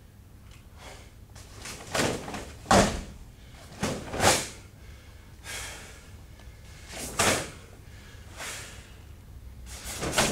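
A karateka performing the Unsu kata: about eight short, sharp bursts of gi snapping and forceful breath with each strike and stance, the loudest about three seconds in. A shout (kiai) starts at the very end.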